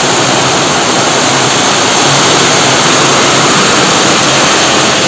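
Heavy rain pouring down hard and steadily, a loud even hiss.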